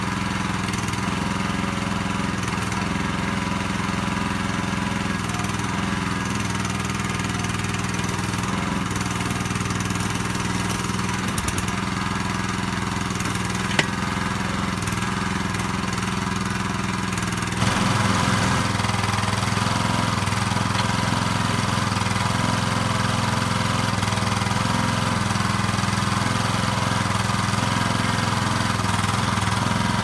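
Small engine of a towable backhoe running steadily, driving the hydraulics as the bucket digs, with a couple of faint sharp clicks. About halfway through the sound becomes louder, with more hiss above the engine note.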